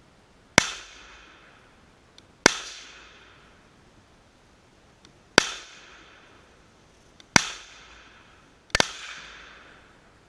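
Five single rifle shots from an AR-15 with a SureFire muzzle comp, fired at an unhurried pace one and a half to three seconds apart, each followed by an echo tail of about a second.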